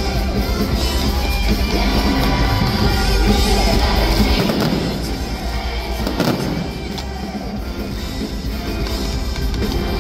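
Loud music playing, with a few firework bursts around the middle.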